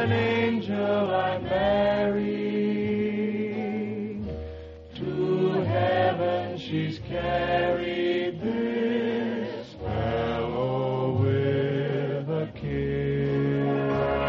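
Choir singing with an orchestra, in phrases broken by brief pauses.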